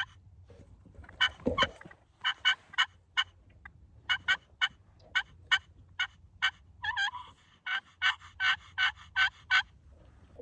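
Turkey yelping: several runs of short, evenly spaced notes, about three to four a second, with brief pauses between the runs.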